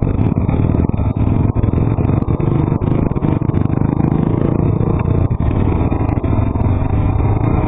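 Honda 400EX ATV's single-cylinder four-stroke engine running steadily at low trail speed, heard up close from the machine itself, with frequent short knocks and clatter as it rides over a rough dirt trail.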